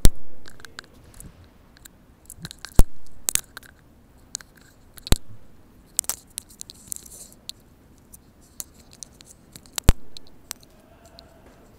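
Irregular sharp clicks and taps close to the microphone, a dozen or so spread unevenly, over a quiet background.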